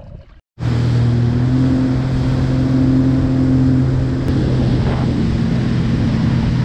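Jet ski running at a steady high speed: a constant engine hum with the hiss of spray and wind over it, starting abruptly about half a second in.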